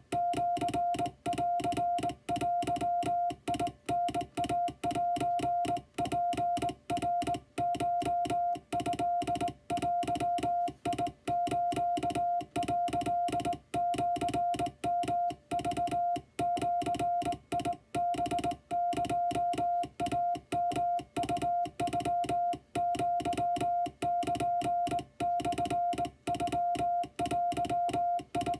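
Hand-sent Morse code from a straight key: a steady tone around 700 Hz keyed on and off in dots and dashes at an uneven human rhythm, each element starting with a click. The text is Japanese-language (wabun) kana telegram practice.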